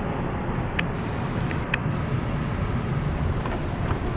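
Steady engine and road rumble heard inside a moving car's cabin, with a few brief clicks scattered through it.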